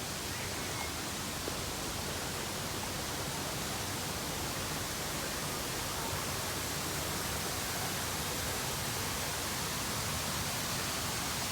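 Steady, even rushing hiss of falling water.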